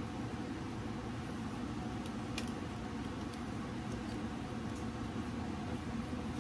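A steady low background hum with a few faint, light clicks as the plastic parts of a cheap tripod are handled.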